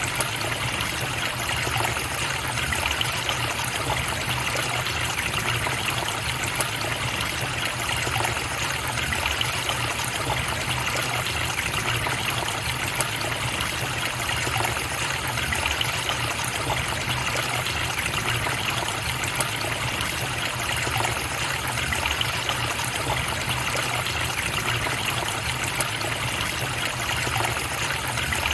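A river's water flowing and trickling, steady and unbroken.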